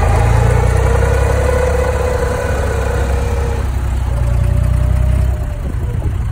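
Diesel engine of an abra, a wooden water-taxi boat, running loud and steady, then easing off about five seconds in as the boat throttles back.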